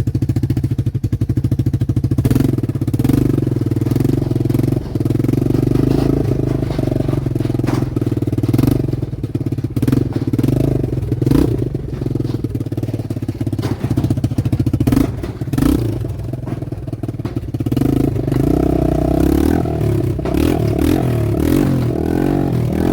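Sheet-metal toolbox being knocked about, with sharp clattering impacts at irregular intervals, over a steady low engine-like drone.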